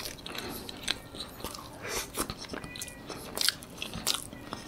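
Close-miked chewing of a bite of avocado toast: a scatter of short crunches and mouth clicks as the toasted bread is bitten and chewed.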